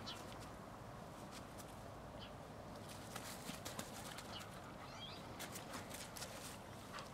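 English springer spaniels' paws stepping and rustling through dry leaves on grass: scattered soft steps and rustles, with a few faint high chirps.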